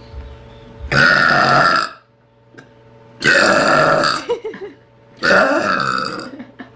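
A girl burping three times in a row, each a long, loud burp of about a second, a couple of seconds apart.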